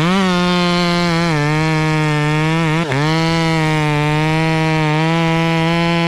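Two-stroke chainsaw running at high revs with a steady pitch, dipping in pitch briefly about three seconds in and then recovering.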